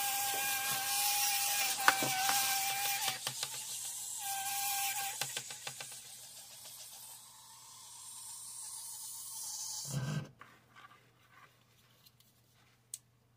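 Electric nail drill running with a steady whine and hiss that drops out around three seconds in and again after five with a clatter of clicks, then runs on before cutting off suddenly about ten seconds in: the drill is failing, perhaps from too much pressure on it. A few faint clicks follow near the end.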